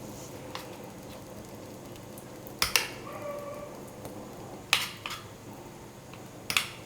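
A spoon clinking and scraping against a tray while a thick layer of banana halwa is pressed flat. There are a handful of sharp clinks, spaced a second or two apart, over quiet room tone.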